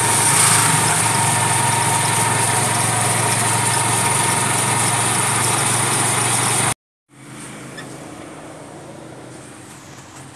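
Steady engine and road noise recorded on board a moving vehicle, loud, with a low hum underneath. It cuts off abruptly about seven seconds in and gives way to a much quieter steady background hum.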